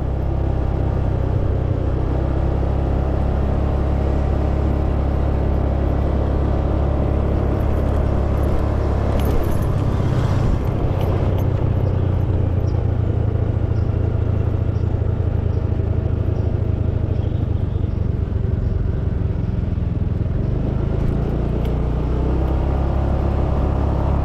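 A motor scooter's engine running steadily while riding. Steady low wind and road rumble lies under it, and the engine note shifts slightly about ten seconds in.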